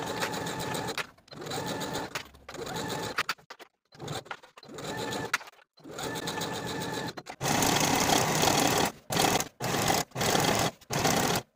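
Domestic sewing machine stitching a seam through heavyweight linen-blend fabric in short runs of about a second, with brief stops between them. About seven seconds in, a louder Singer ProFinish serger takes over, overlocking the seam allowance in similar runs.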